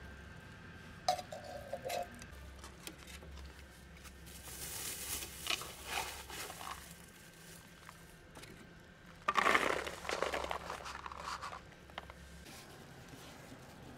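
Dry cat kibble poured into a foam food tray, a loud rattling patter lasting about two seconds, after a stretch of softer rustling and crinkling.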